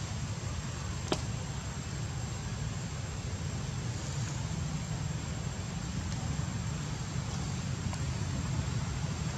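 A steady low rumbling noise, with one sharp click about a second in.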